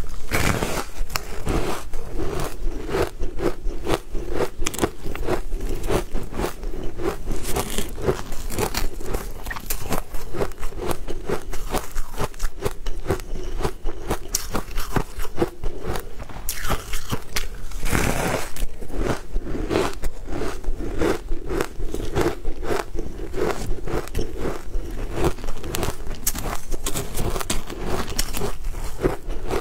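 Close-miked biting and crunching of a frost-covered ice block dusted with matcha powder: a dense, steady run of crisp crunches. The biggest bites come about half a second in and again at around 18 seconds.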